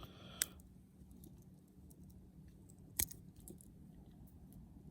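Two sharp metallic clicks, about half a second in and about three seconds in, with a few faint small ticks between. These are a Victorinox Explorer Swiss Army knife's tools snapping shut and being pried open against the backspring.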